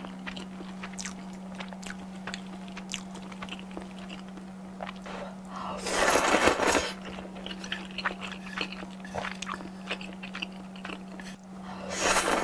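Close-miked chewing with many small wet clicks, then two loud slurps of thick udon noodles, about six seconds in and again near the end.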